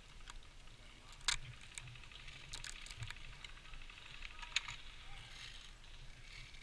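Close-up handling noise from small equipment: light rattling and clicking, with two sharp clicks about a second in and again near the middle.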